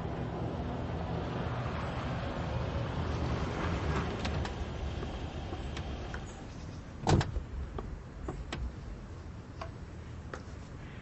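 A vehicle engine running with a low, steady hum that fades out over the first half, then a single loud thump a little after seven seconds, followed by a few light clicks.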